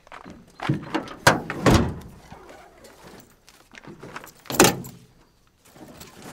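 A door being handled: a run of knocks and clunks, loudest about a second and a half in and again a little past four seconds.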